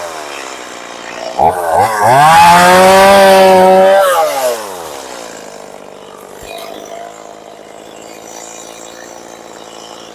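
Two-stroke chainsaw engine revved hard about a second and a half in, held at high revs for about two and a half seconds, then dropping back to a steady idle for the rest.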